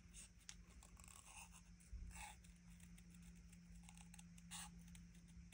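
Faint, scattered snips of small sharp craft scissors fussy-cutting a piece of white cardstock, the clearest about two seconds in and near the end.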